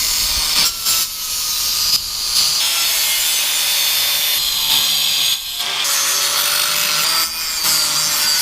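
Handheld power tool trimming welded thin metal sides down to height: a steady grinding-cutting noise with a faint motor whine, broken by several short pauses between passes.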